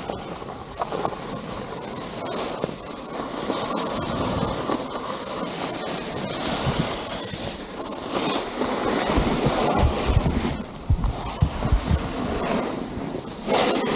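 Snowboard sliding and carving over packed snow, a continuous scraping hiss, with wind buffeting the microphone in low rumbles in the second half.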